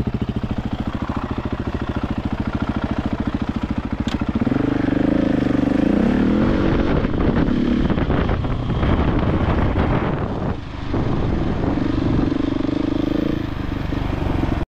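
Husqvarna 701 rally motorcycle's single-cylinder four-stroke engine idling steadily, then revving up about four seconds in as the bike pulls away. It keeps running, its note rising and falling with the throttle.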